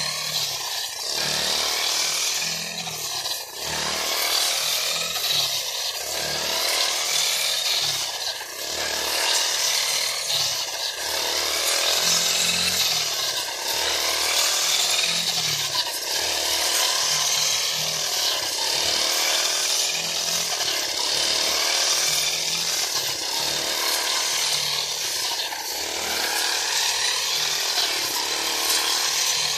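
Backpack brush cutter's small petrol engine running at high speed while its metal blade cuts green fodder. The note swells and eases about once a second with each sweep of the blade through the crop.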